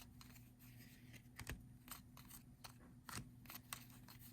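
Faint, irregular clicks and flicks of trading cards being flipped through by hand, one card slid off the stack after another.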